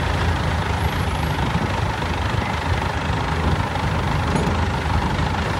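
Diesel engine of a hydra crane running steadily at a low idle.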